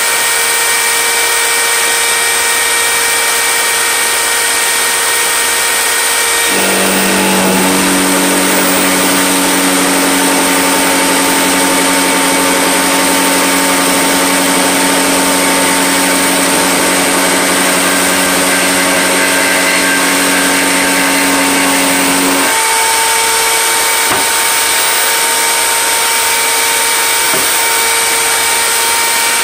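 Router mounted in a wooden router table, running at high speed with a loud, steady motor whine. From about six seconds in until about 22 seconds a deeper, lower-pitched hum takes over, then the higher whine returns.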